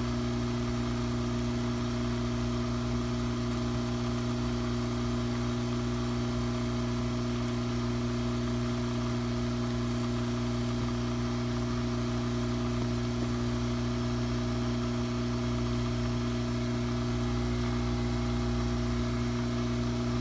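Electric hot-air tool running steadily, a fan whir with a strong electrical hum, used to warm the adhesive around a laptop DC jack.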